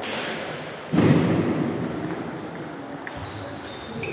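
Table tennis ball strikes and bounces during play, with a loud thud about a second in and a short ringing ping of the ball near the end.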